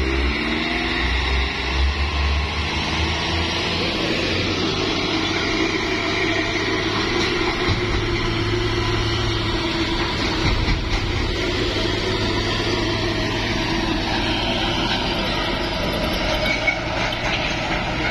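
Diesel engines of heavy trucks labouring uphill under load, a steady low engine drone; the thick black smoke they pour out is the sign of engines working hard on the climb.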